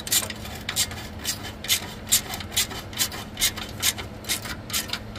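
Quarter-inch-drive hand ratchet with a swivel 8 mm socket clicking in even strokes, a little over two a second, as it turns a transmission pan bolt in.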